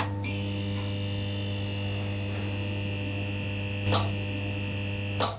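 Electrical buzz of a neon sign: a steady mains hum with a thin high whine above it, broken by two sharp crackles, one about four seconds in and one just before it cuts off.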